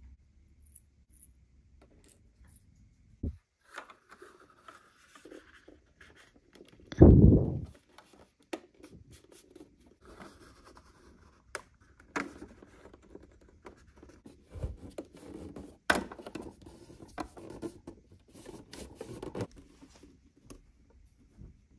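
Hands handling miniature dollhouse kitchen parts: small clicks and scrapes of tiny wire S-hooks on a hanging rod and of plastic fittings, with light rustling as a thin card backsplash panel is fitted. One dull thump about seven seconds in is the loudest sound.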